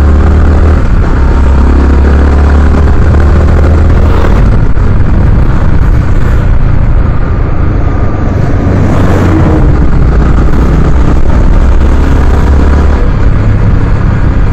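Yamaha R15's single-cylinder engine running at a steady cruise, heard from on the bike with wind rushing over the microphone. The low engine hum shifts slightly in pitch about a second in and again near the end.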